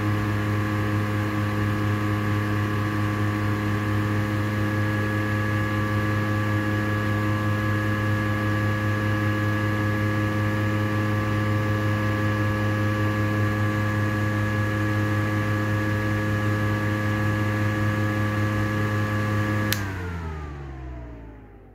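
Heller 250 mm exhaust fan running steadily, a motor hum with an airy rush. Near the end it is switched off with a click, and the hum slides down in pitch and fades as the fan spins down.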